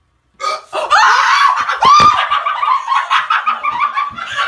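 A person's loud, high-pitched shriek starting about half a second in and held for several seconds, broken with laughter.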